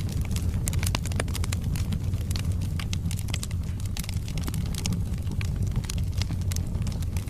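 Wood fire burning in a fireplace: a steady low rumble of the flames with many sharp crackles and pops from the burning logs, several a second at irregular intervals.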